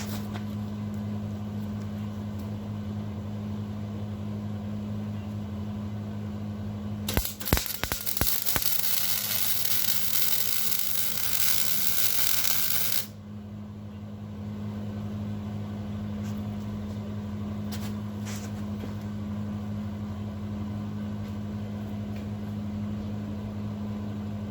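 Electric arc welding on a steel railing's anchor plate: about seven seconds in the arc strikes with a few sharp crackles, then a steady loud frying hiss for about six seconds that stops abruptly. A steady low electrical hum runs underneath.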